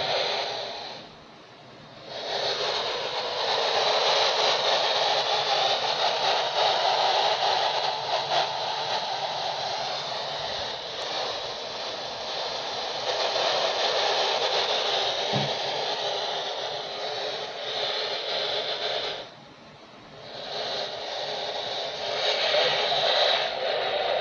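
Uniden CB transceiver scanning the channels, its speaker giving a steady static hiss from empty channels. The hiss cuts out briefly twice, about a second in and again about five seconds before the end.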